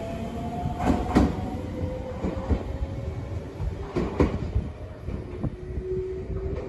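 JR Shikoku 7000 series electric railcar running slowly on the track, its wheels clicking over rail joints in quick pairs, twice, about three seconds apart. A faint steady electric whine and a low rumble run underneath.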